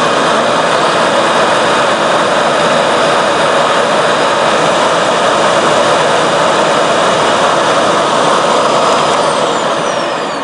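Bissell OptiClean 1535 bagless canister vacuum's motor running steadily, a loud rush of air with a constant whine. Near the end the level drops and the whine falls in pitch as the motor winds down.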